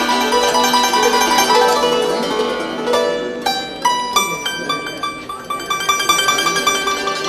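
Instrumental music with quick runs of notes. From about halfway through, one high note is repeated rapidly.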